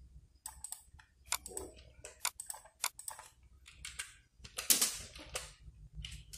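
Typing on a computer keyboard: a string of irregular key clicks, with a louder quick run of keystrokes about five seconds in.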